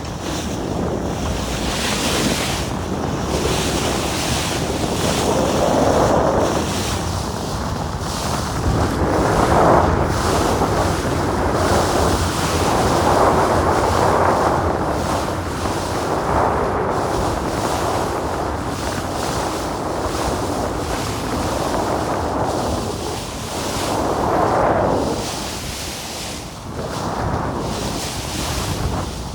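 Wind buffeting the microphone over the rush of the open sea, swelling and easing every few seconds.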